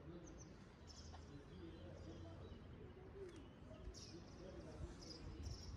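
Faint outdoor ambience: small birds chirping in short high calls every half second or so, over a low murmur of distant voices.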